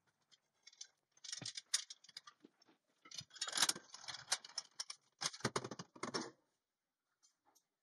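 Manual tube bender working a long steel tube: rapid metallic clicking, clanking and rattling in three clusters, quiet in between.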